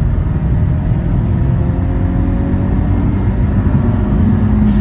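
Inside the cabin of a 1994 Toyota Celica GT-Four Group A Rallye on the move: a heavy low rumble of engine and road noise, with a faint engine note slowly rising in pitch as the car picks up speed.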